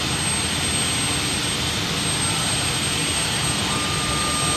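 UH-60 Black Hawk's turbine running steadily while the helicopter sits parked with its rotor blades stopped, a smooth jet-like hiss with no rotor beat. A steady whine joins it near the end.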